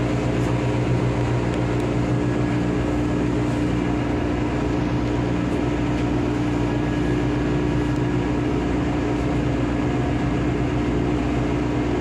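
Ship's engine-room machinery running: a loud, steady drone with a held mid-pitched tone and a deeper hum beneath it that does not change.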